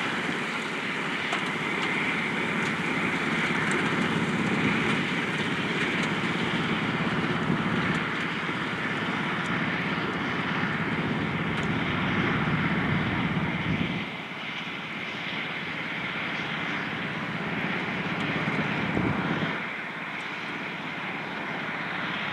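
John Deere 9460R tractor's diesel engine running steadily under load, pulling a Bunning manure spreader that is throwing out chicken litter. The drone drops slightly in level about two-thirds of the way through and again near the end as the rig moves away.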